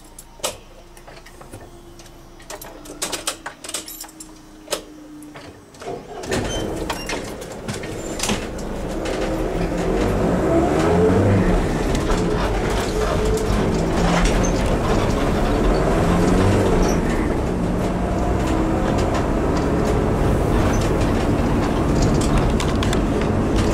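Car engine and road noise heard from inside the cabin. For the first six seconds there are only a few scattered clicks and knocks. About six seconds in the noise rises sharply as the car pulls away, and the engine pitch rises and falls as it accelerates through the gears.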